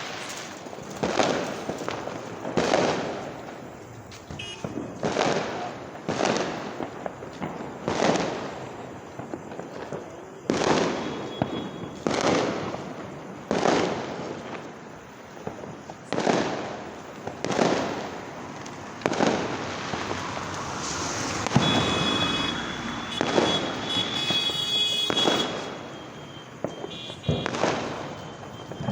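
Firecrackers bursting one after another, a sharp bang every second or so, each trailing off in echo. Past the middle, a high steady whistling tone sounds for a few seconds over the bangs.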